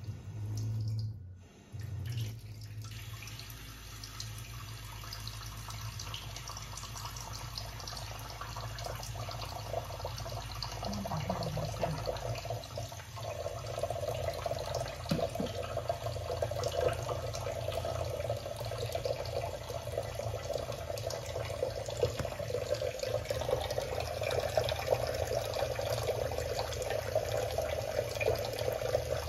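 A thin stream of tap water running from a kitchen faucet and splashing into a shallow ceramic bowl in a stainless steel sink, a steady patter that grows fuller and louder about halfway through.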